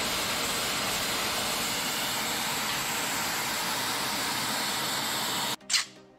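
Steady, even hiss of a gas torch flame heating a homemade tool-steel thread tap to harden it. It cuts off abruptly near the end, and a file then scrapes once across the hardened tap.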